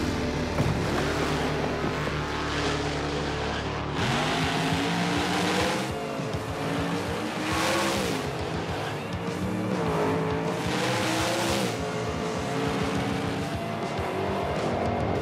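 Two street-race cars' engines running at the start line, then launching at full throttle about four seconds in. The pitch climbs and drops back at each of several gear changes as they accelerate side by side. Music plays underneath.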